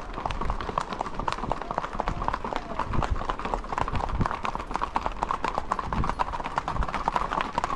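Horses' hooves clip-clopping on a paved road: a quick, busy run of footfalls from the ridden horse and others close by.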